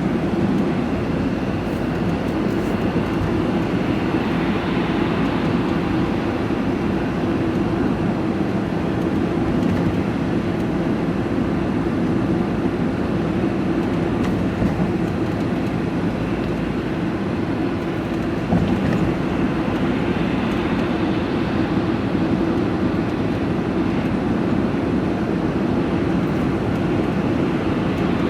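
Steady engine and tyre drone heard inside the cab of a moving diesel vehicle cruising on a dual carriageway.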